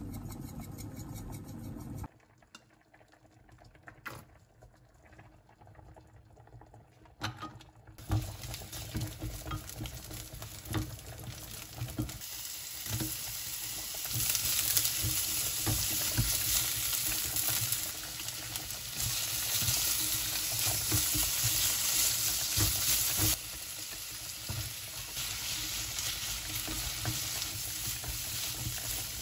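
Sliced onion, then mushrooms and bacon, sizzling in olive oil in a frying pan and stirred with a spatula, with scrapes and light knocks against the pan. The frying starts several seconds in and gets louder once the mushrooms go in.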